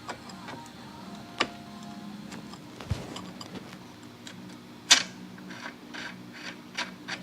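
Tecomec Super Jolly electric chain grinder running with a steady hum, with sharp clicks, the loudest about five seconds in, and a run of short grinding bursts near the end as cutters of the chainsaw chain are sharpened one after another.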